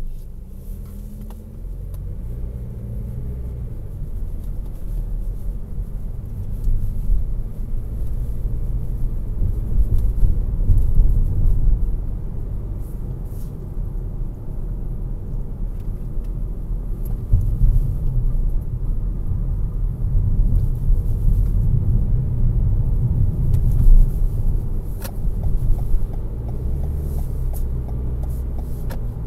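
Toyota Corolla hatchback cabin noise picked up by a windshield dash cam's microphone while driving: a steady low rumble of road and engine noise. It grows louder over the first several seconds as the car pulls away and gets up to speed.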